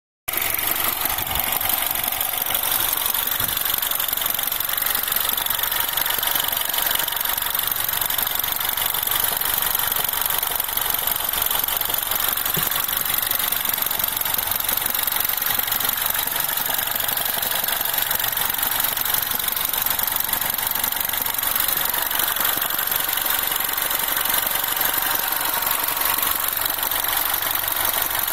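R56 Mini's four-cylinder engine idling steadily at operating temperature, with a noise the owner puts down to the timing chain.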